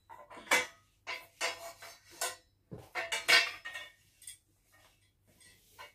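Steel parts of a metal table frame clinking and knocking together as they are handled during assembly: a quick run of sharp metallic clinks, some briefly ringing, thinning out to a few faint ticks after about four seconds.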